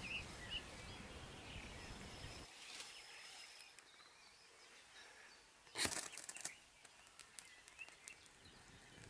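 Quiet early-morning moorland ambience: low wind rumble that drops away after a couple of seconds, with a little faint birdsong. About six seconds in comes a short burst of sharp clicks and rattles, then a few isolated clicks.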